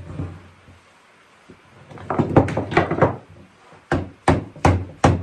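Parts of a small oak rocking chair being knocked together: a thump at the start, a flurry of knocks about two seconds in, then a run of sharp, evenly spaced knocks, about three a second.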